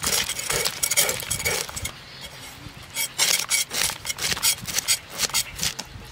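Scales being scraped off a snakehead fish against the curved blade of a bonti: a run of quick rasping strokes, pausing briefly about two seconds in before starting again.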